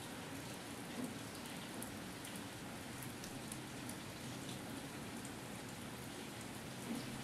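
Light drizzle falling steadily, with scattered drops ticking on surfaces and two slightly louder drops, about a second in and near the end.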